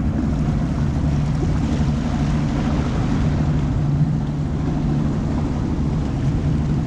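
Boat's outboard motor running steadily at an even speed, a constant low hum.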